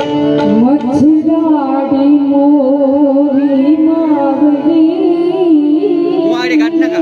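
Loud Indian-style music: a wavering, gliding lead melody over a steady drone.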